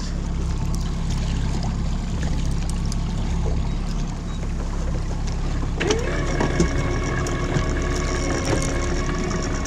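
Outboard motor running steadily, with water noise against the boat. About six seconds in, a whine rises briefly in pitch and then holds steady.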